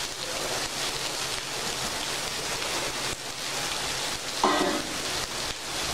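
Diced calabresa sausage sizzling steadily in a dry frying pan over a gas burner. No oil has been added, so it is frying in its own released fat.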